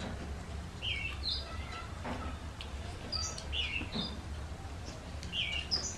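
Small birds chirping: short, curved chirps, a few every second or two. Faint clicks from hands mixing rice and from chewing sit underneath, over a steady low hum.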